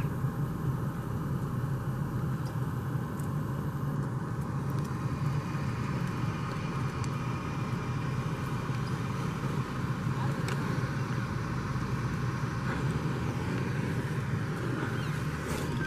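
Pickup truck's engine running steadily, heard from inside the cab, with a few faint clicks.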